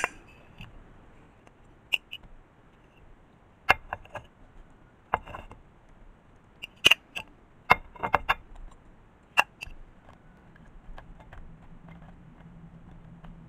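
A metal fork clicking and scraping against white ceramic dishes as quartered cherry tomatoes are pushed off a serving dish into a casserole. The clicks are sharp and irregular, about one every second or so, some in quick pairs, with quiet between.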